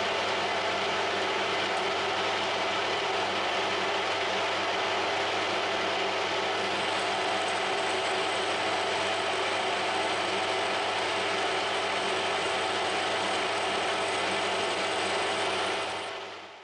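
Geared workshop machine tool running steadily with a whir of gears, then switched off and winding down near the end.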